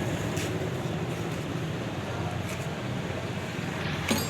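A machine running steadily with a low hum, with a few sharp clicks; the loudest click comes near the end.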